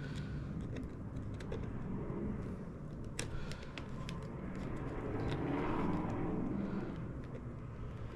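Scattered small clicks of plastic wiring clips and connectors being worked by hand, with a vehicle passing in the background, swelling and fading about five to seven seconds in.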